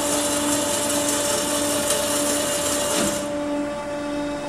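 FE 332 CNC metal-cutting band saw running under power, a steady motor hum with a constant whine. A loud hiss over it drops away about three seconds in while the hum carries on.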